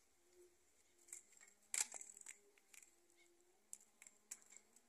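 Faint crinkling and tearing of cloth and mesh wrapping being pulled by hand from the opening of a log hive, in short crackles with the sharpest tear about two seconds in.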